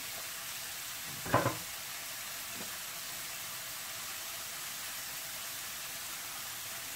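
Julienned burdock root frying in oil in a pan, stirred with a wooden spoon: a steady sizzle, with one short louder sound about a second in.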